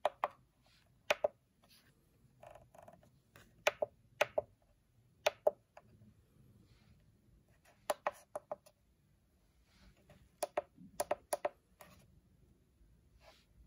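Keys on an SMC4-4-16A16B CNC motion controller's membrane keypad being pressed, each press a sharp click, singly and in quick runs of two or three, with pauses of about a second between.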